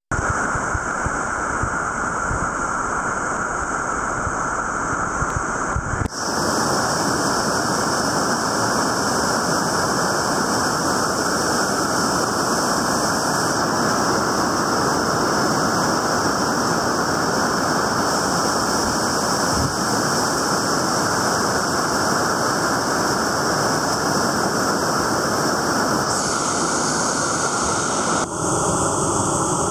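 Loud, steady rush of whitewater rapids pouring over boulders. The tone of the rush changes abruptly about six seconds in and twice more near the end.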